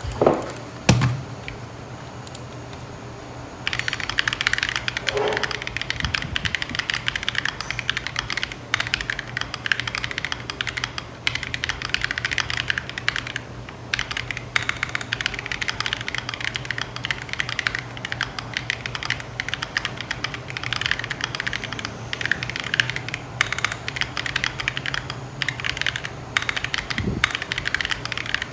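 Typing on an Akko ACR Pro Alice Plus acrylic-cased mechanical keyboard with stock Akko Crystal linear switches: a couple of loud knocks about a second in, then quick, steady keystrokes from nearly four seconds in, with brief pauses.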